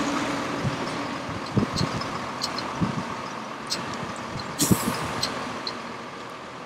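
Work truck's engine running at low speed as it tows a heavy trailer load, fading as it moves away. Several knocks and clanks from the rig come through, with a brief hiss about four and a half seconds in.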